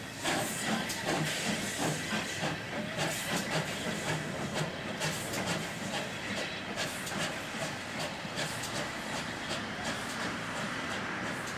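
Steam locomotives GWR 57xx pannier tank 5775 and LMS 8F 2-8-0 48431 working together under steam, a steady rhythmic chuff of exhaust beats, about two to three a second, over hissing steam.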